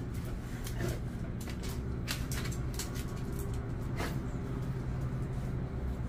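Scattered short scuffs and clicks as an excited Jindo dog jumps about and is petted, over a steady low hum.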